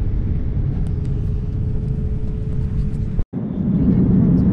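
Airliner cabin noise: a steady low rumble with a faint steady hum, broken by a brief cut about three seconds in, after which the rumble carries on.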